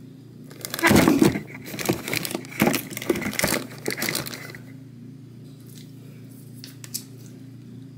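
Close handling noise: a dense run of rustling, crinkling and knocking sounds for about four seconds, loudest about a second in, over a steady low hum. A couple of faint clicks follow near the end.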